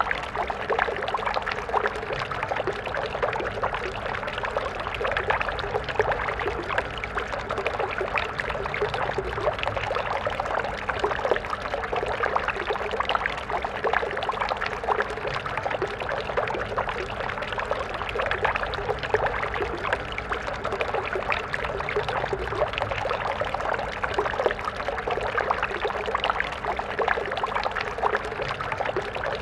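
A stream of water flowing steadily, a continuous splashing and burbling.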